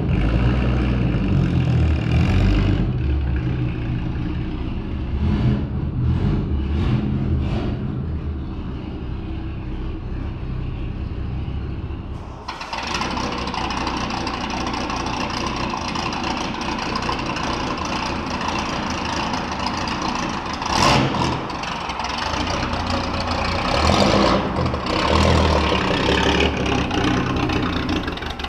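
Straight-piped 1930s pre-war roadster engine running. It sounds dull and muffled at first, then suddenly clear and close about halfway through, with two sharp revs in the second half.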